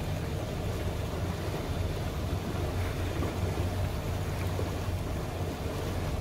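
Cabin cruiser under way on calm water: a steady low hum with the wash of water along the hull and some wind noise.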